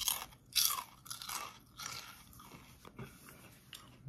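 Lay's Classic potato chip bitten and chewed: two loud, sharp crunches at the start and about half a second in, then a run of smaller crackling crunches that grow fainter as the chip is broken down.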